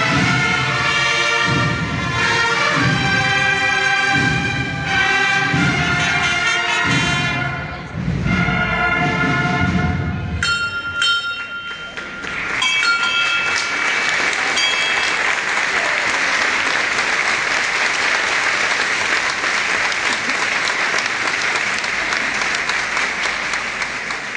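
Brass band playing a processional march with a heavy drumbeat, which stops about ten seconds in. A few held tones follow, and then the crowd breaks into long, steady applause.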